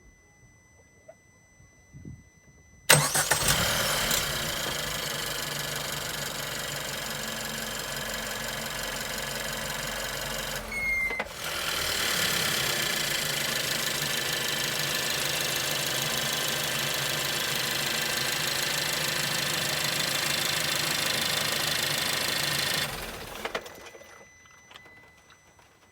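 Suzuki Swift Sport ZC33S's 1.4-litre turbo four-cylinder engine cranks and starts about three seconds in and runs steadily. After a brief break near the middle it runs again and is switched off near the end, fading to quiet with no noise from the freshly replaced water pump.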